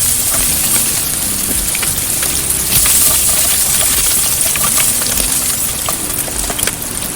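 Bacon frying in its own rendering fat in a pan, a steady sizzling hiss dotted with many small crackling pops of spattering fat.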